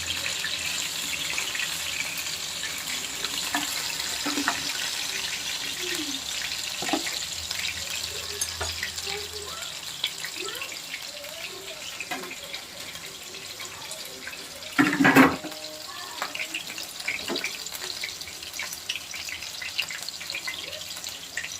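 Potatoes and onions frying in hot oil in two pans: a steady sizzle with fine crackles that slowly grows quieter. A short louder burst stands out about fifteen seconds in.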